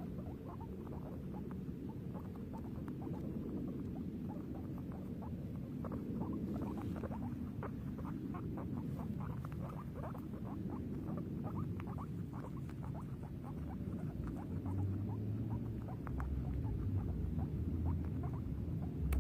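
A guinea pig making a dense, irregular run of short, rapid squeaks and chirps, over a low background rumble that gets louder in the last few seconds.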